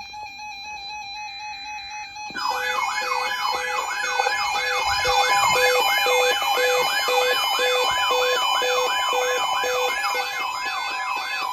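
Electronic warbling siren alert tone of a weather emergency alert: quick rising-and-falling sweeps, about two and a half a second, over a lower beep pulsing about twice a second, starting about two seconds in. A steady tone joins near the end.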